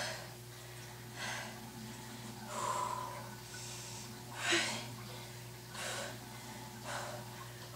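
A woman breathing hard through her mouth during reverse pull-ups: six short, forceful exhalations, one with each repetition, about every second and a half.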